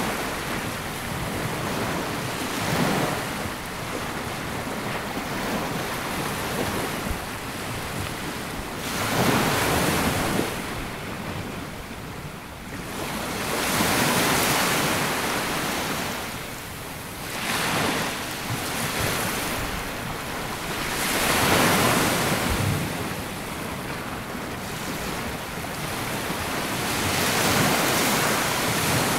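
Sea waves breaking and washing up on a sandy beach, the surf rising and falling every few seconds.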